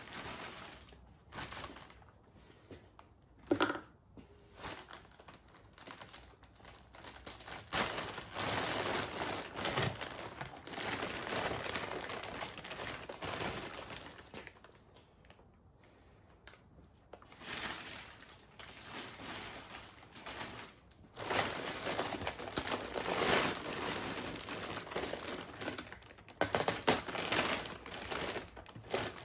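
Plastic vacuum-bag film crinkling and rustling as it is pulled off a freshly moulded carbon-fibre mudguard, in irregular bursts with quieter gaps.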